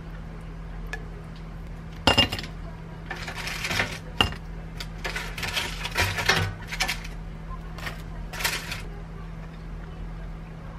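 Dishes and utensils clinking and scraping: a sharp clink about two seconds in and another about four seconds in, with short bursts of scraping and rattling between them.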